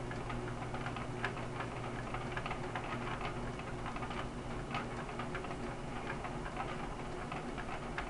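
Brush pile fire crackling, with irregular snaps and pops over a steady low hum.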